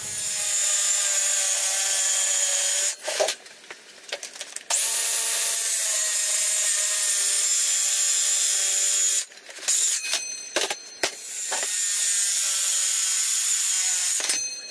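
DeWalt cordless circular saw cutting through MDF board, its motor whining steadily under load in three long runs with short pauses and a few knocks between them.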